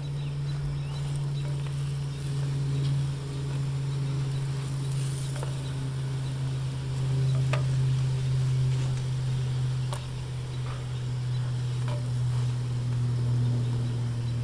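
Steady low buzzing drone, swelling and easing slightly in loudness, with a few light clicks of a utensil against a frying pan.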